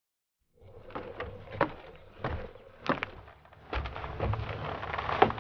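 Footsteps of boots on a wooden boardwalk, knocking about every half second after a moment of silence, with a low rumble joining a little past the middle.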